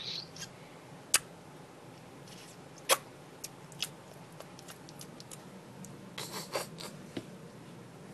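Small plastic toys being handled, giving a few sharp clicks and taps: two loud clicks about a second in and near three seconds, and a quick run of lighter taps near the end.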